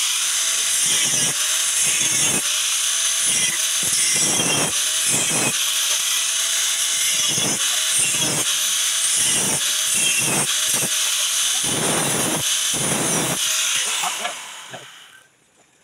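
Corded angle grinder with a cutting disc running at full speed while cutting notches into square metal tubing: a steady high whine with the rasp of the disc biting into the metal again and again. Switched off near the end, the motor spins down.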